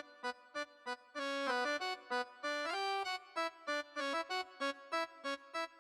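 Instrumental background music: a light melody of short, evenly paced notes broken by a few longer held notes.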